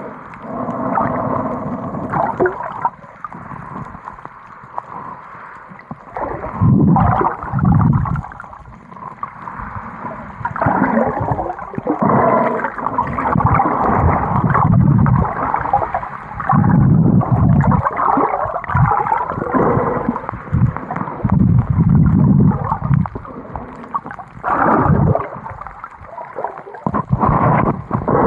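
Underwater sound, muffled and cut off above the midrange: water gurgling and rushing in irregular surges, swelling and fading every second or two as the swimmer moves.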